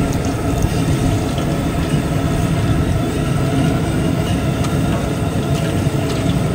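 The flame of a freshly lit cooking stove under a large empty pot, giving a loud, steady, low rumbling noise.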